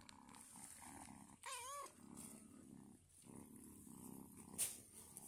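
Ginger kitten purring softly in stretches, with one short, wavering meow about a second and a half in. A sharp click comes near the end.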